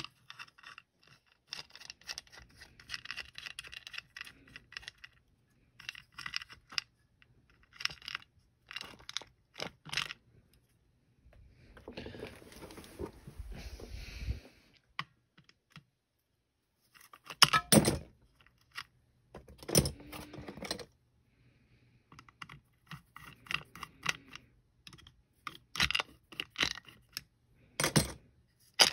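Hand tools and small metal parts clicking and clinking irregularly as an Evinrude outboard block is taken apart. About twelve seconds in there is a scraping stretch lasting a few seconds.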